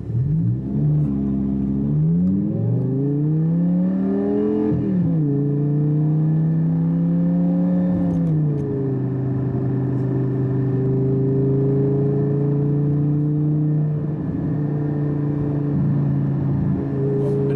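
Lamborghini 5.2-litre V10 heard from inside the cabin, accelerating hard: the revs climb and drop at several quick upshifts in the first nine seconds. It then settles to steady cruising revs.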